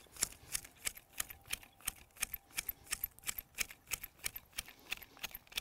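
Hand hedge shears snipping quickly and steadily, about three snips a second, as their blades close through the soft new candle growth of a mugo pine.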